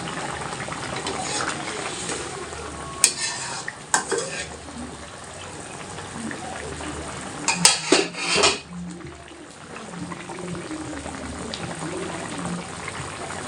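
Fish curry with tomato sizzling and bubbling in a pan while it is stirred, with a utensil clinking against the pan twice early on and then several times in quick succession about 8 seconds in.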